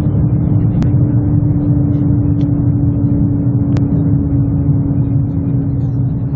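Cabin noise inside a JR Central L0-series superconducting maglev train levitating at about 480 km/h and slowing: a loud, steady rumble with a hum that drifts slightly lower in pitch. Two short clicks, about a second in and near four seconds.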